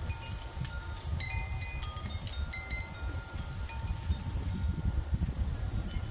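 Wind chimes ringing in irregular clusters of clear, sustained tones as gusts stir them, over a low rumble of wind buffeting the microphone.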